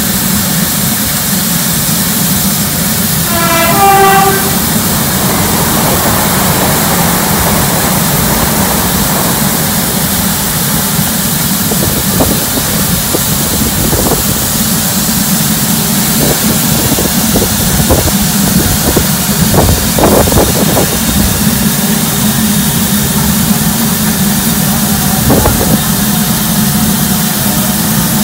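LMS Stanier Black Five steam locomotive standing in steam, with a steady hiss and a low rumble. A brief run of falling notes comes about four seconds in, and scattered metallic knocks come from about twelve seconds on.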